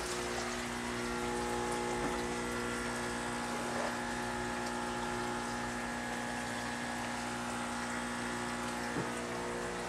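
Steady hum of aquarium pumps and filters over a hiss of moving water.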